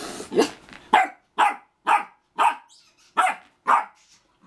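Samoyed barking at a ginger kitten: a run of about seven sharp barks, roughly two a second, with a short break near the middle.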